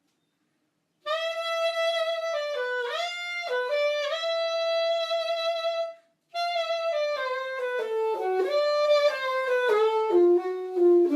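Solo instrumental music: a single instrument plays a slow, held melody that starts about a second in, pauses briefly, then steps downward note by note.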